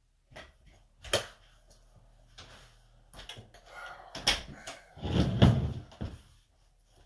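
Aluminium-framed DJ flight case being handled: a sharp click about a second in, some knocking and rattling, then a heavy low thump around five seconds in, the loudest sound.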